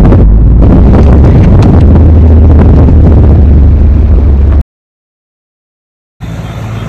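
Loud, steady low rumble of a car on the move, heard from inside the cabin, with scattered knocks. It cuts off to silence about four and a half seconds in.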